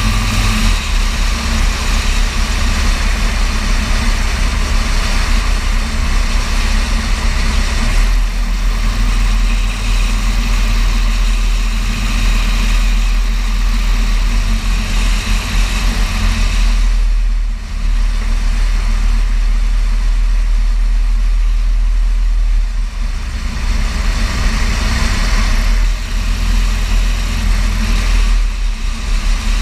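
Light aircraft's propeller engine droning steadily in flight, with heavy wind rush over the microphone; the engine noise eases for a few seconds just past the middle.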